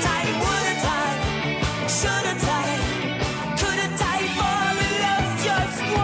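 Rock and roll song played over a sound system, with sung vocals over a steady drum beat, bass and guitar.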